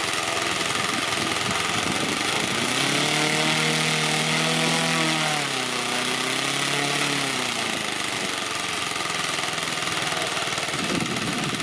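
Propeller-driven model aircraft engine with opposed finned cylinders running steadily on a test stand, firing in a rapid, even chatter. A smooth tone comes in about three seconds in, wavers down and up in pitch, and fades out about five seconds later.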